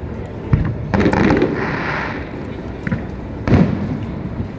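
Aerial fireworks shells bursting: heavy booms about half a second in, again at about one second, and once more near three and a half seconds.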